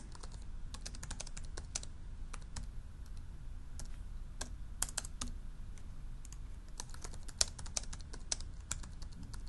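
Typing on the keyboard of an Intel Classmate PC netbook: irregular runs of quick key clicks, with short pauses between bursts, as an answer is entered into a text box.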